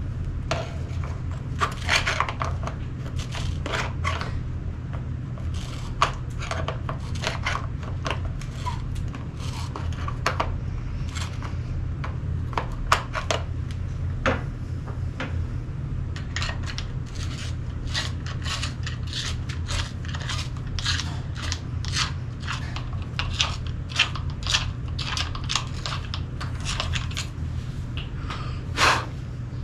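Irregular metallic clicks of a tool working the long stock screw of a Benelli Vinci shotgun into its threads, over a steady low hum.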